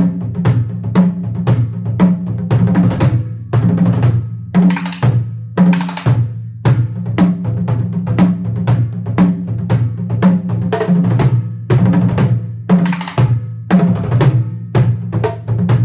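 Japanese taiko drums played in a steady rhythm, with quick six-stroke fills (sextuplets) that run into an accented beat every couple of seconds.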